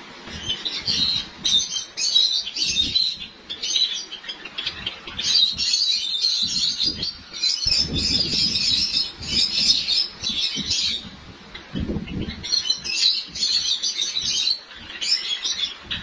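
A flock of white Java sparrows chirping, quick high chips coming in dense clusters one after another. Twice, about halfway and about three quarters through, a low rustling sound joins in.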